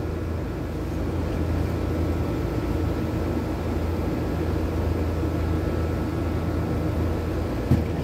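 Air-conditioner condenser fan motor running steadily, while the stalled compressor fails to start. A short knock near the end.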